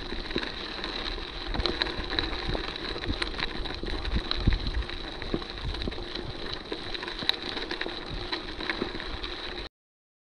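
Mountain bike rolling down a gravel road, heard from a handlebar-mounted camera: a steady rolling crunch from the tyres with frequent small knocks and rattles from the bike, and wind rumble on the microphone. It cuts off suddenly near the end.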